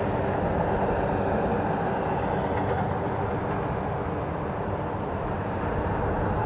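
Lockheed WC-130J's four Rolls-Royce AE 2100 turboprop engines running at taxi power: a steady propeller drone with a deep rumble underneath.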